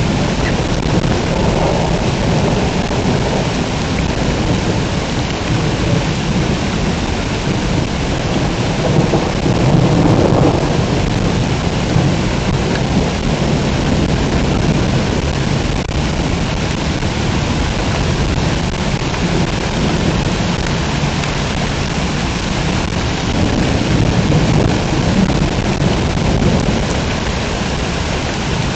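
Heavy rain pouring steadily in a thunderstorm. Rumbles of thunder swell up twice, about a third of the way in and again near the end.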